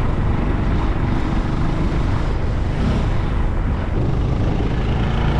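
Steady travelling noise from a vehicle driving along a road: a low drone with a rushing haze over it, loud and unbroken.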